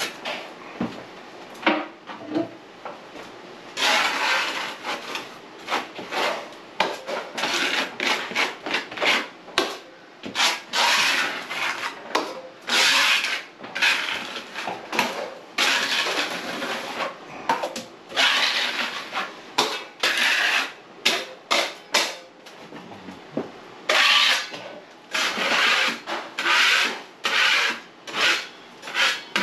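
A drywall knife scraping in repeated, irregular strokes, spreading setting-type joint compound (hot mud) over a crack in a plaster ceiling.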